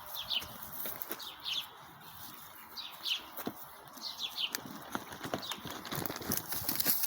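A flock of sheep moving about, their hooves making scattered light knocks and clicks. A small bird chirps again and again in short falling notes, often in pairs.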